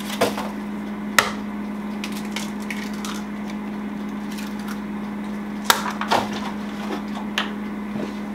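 An egg tapped sharply on a stainless steel mixing bowl and cracked, then a few lighter knocks and clatters of kitchen handling, over a steady low hum.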